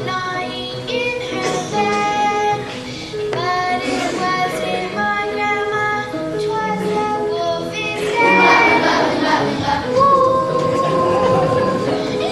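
Children singing a song together with musical accompaniment.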